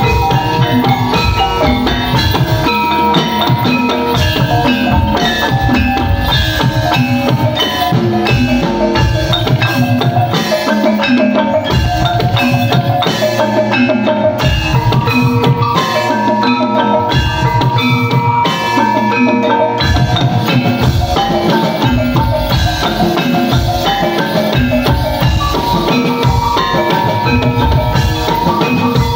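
Javanese gamelan music accompanying a jaran kepang dance: tuned metal percussion playing a busy melody with ringing notes over steady, rhythmic drum strokes, loud and continuous.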